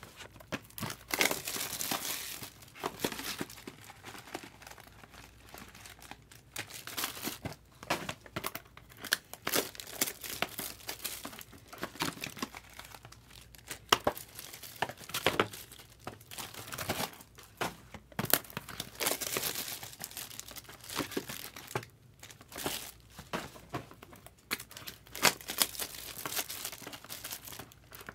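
Foil wrappers on trading card packs crinkling and tearing in irregular bursts as they are handled and ripped open, with sharp snaps now and then.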